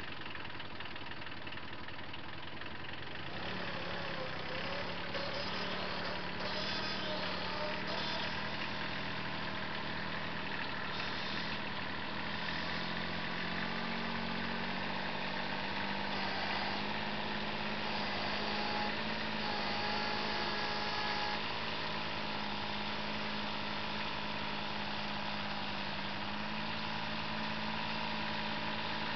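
Compact tractor's engine running steadily under load. Its pitch steps up about three seconds in and then holds.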